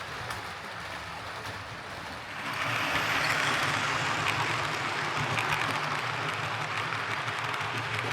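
Hornby Class A1 OO gauge model steam locomotive running along the track, its motor whirring and its wheels clicking on the rails, getting louder about two seconds in. Its motor, re-seated with plastic shims, is now driving the wheels again rather than spinning loose.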